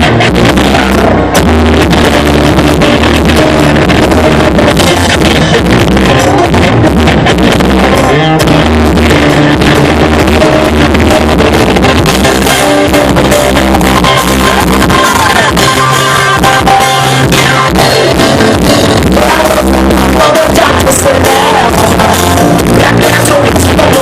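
Live rock band with electric guitar, drums and a singer, played very loud through PA speakers and recorded close to them, so the sound is harsh and distorted.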